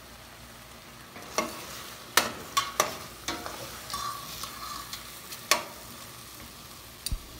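Seasoned chicken sizzling in a pot while it is stirred, with several sharp knocks of the utensil against the pot in the first half.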